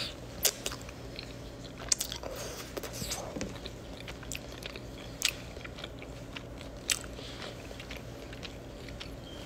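A person chewing and biting into a spaghetti sandwich on white bread close to the microphone: scattered wet mouth clicks and smacks, busiest about two to three seconds in, with a few single louder clicks later.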